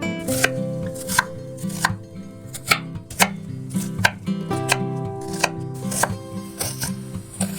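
Knife chopping food on a cutting board, with sharp, irregularly spaced strikes about one or two a second.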